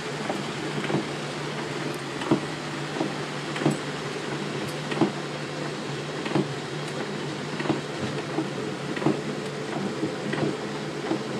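Windshield wipers thumping at each end of their stroke, about once every second and a half, over the steady hum of a vehicle's engine and fan and the hiss of rain.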